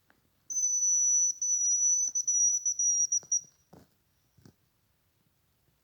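High, thin hazel grouse whistle: one long, slightly falling note that breaks into a quick run of short notes at its end. Two faint clicks follow.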